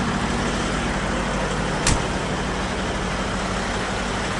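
A big truck's engine idling, a steady low hum, with a single sharp click about two seconds in.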